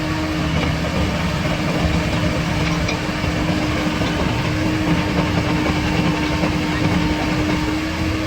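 A 323D2L excavator's diesel engine running steadily, a constant low rumble with a steady hum.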